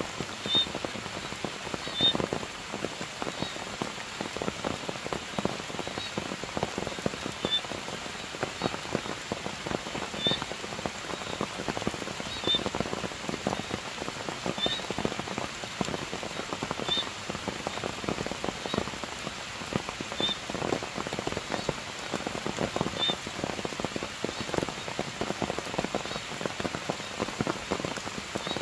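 Steady rain falling on forest foliage, with many separate drops striking close by. A faint, short, high chirp repeats about every two seconds.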